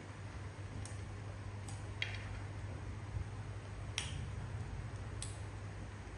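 Macaques eating snacks: a handful of short, sharp clicks and smacks of chewing and handling food, about five spread over a few seconds, over a steady low hum.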